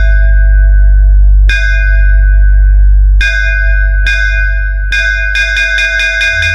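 DJ bass-test remix music: a deep, heavy sustained bass under bell-like synth hits, single strikes about a second apart, then a fast roll of hits near the end that sweeps down into the next bass drop.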